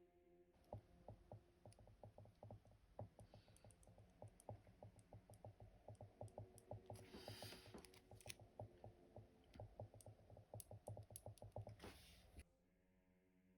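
Fast run of faint small clicks and taps, several a second, from airsoft gearbox parts being handled and fitted; it stops abruptly near the end.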